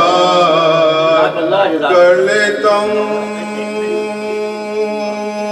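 A man's voice chanting a noha, a Shia devotional lament, in a melodic reciting style. The voice slides between notes for the first couple of seconds, then holds one long note for about three seconds.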